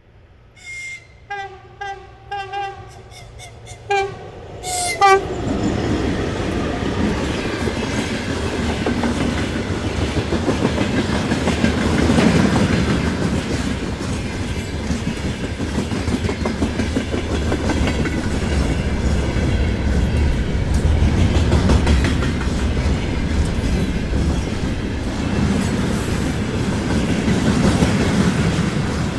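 VL11 electric locomotive sounding its horn in a series of short blasts, then the freight train passes close by: a loud, steady rumble of locomotive and wagons with the clickety-clack of wheels over rail joints.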